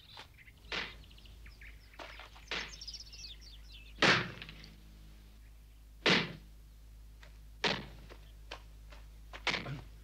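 Wooden mallet pounding a wooden stake into the ground: a series of heavy thuds, one about every one and a half to two seconds, loudest around the middle.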